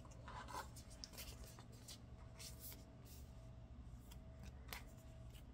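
Faint rustling and light ticks of photocards being handled and slipped into the plastic pockets of a binder page.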